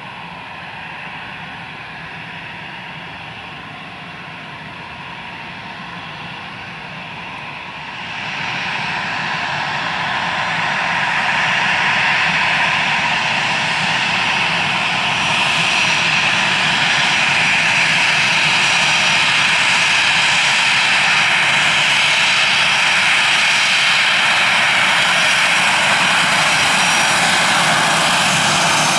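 Airbus A321-211's CFM56-5B turbofan engines running at taxi thrust: a steady rushing whine that grows louder about eight seconds in as the jet draws near, then holds steady.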